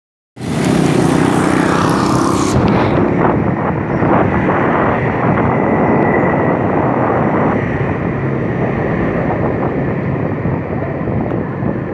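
Riding a motorbike in city traffic: steady engine, road and traffic noise, loud and unbroken. A bright hiss fades after about two and a half seconds.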